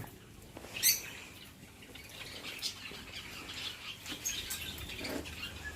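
Caged pet-shop birds chirping, with one sharp, high call about a second in and scattered faint chirps after it.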